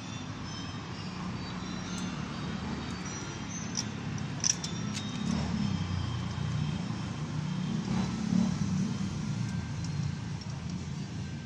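Steady low rumble of passing road traffic, swelling a little now and then, with a few sharp light clinks about four to five seconds in.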